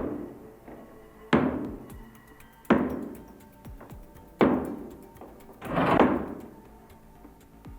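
Background music of slow, heavy percussive hits about every second and a half, each ringing out. Near the end comes a hit that swells in rather than striking sharply.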